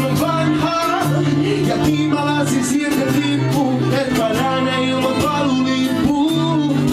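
Live acoustic music: a strummed acoustic guitar and a violin, with a man singing into the microphone.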